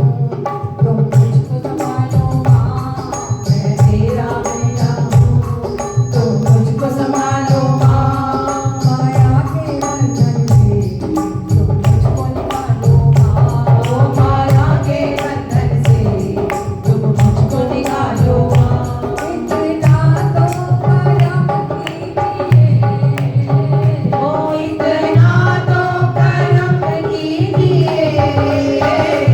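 Devotional bhajan music with a hand drum keeping a steady beat under a melodic line, and a quick ticking percussion layered on top.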